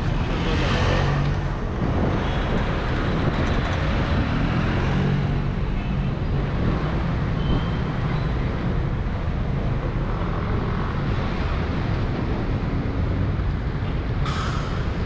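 City street traffic with motor scooters and cars running and passing close by, a steady engine hum throughout. A short, sharp hiss comes near the end.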